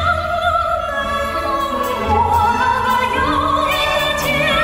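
Live singing over orchestral accompaniment: a voice holds long notes with wide vibrato, the melody climbing in the second half, above sustained strings and a low bass pulse.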